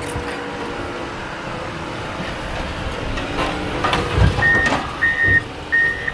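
Heavy equipment engine running steadily, with metal clanks and a heavy thump about four seconds in. Then a backup alarm beeps three times, evenly spaced.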